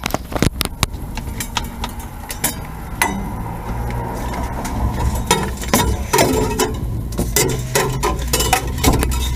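Irregular clicks, knocks and glassy clinks as a corded power tool and gloved hands are handled against the rear window glass and bare sheet metal of a stripped car body. A low rumble runs underneath from a few seconds in.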